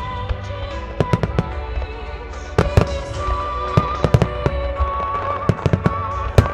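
Aerial firework shells bursting in quick clusters, a dozen or more sharp bangs, over the music that accompanies a creative fireworks display.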